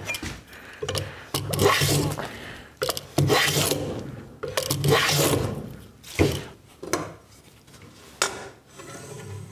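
Compass plane taking shavings along the curved edge of a wooden chair leg: several long rasping strokes of about a second each. A sharp knock comes a little past halfway, followed by quieter handling of the wood.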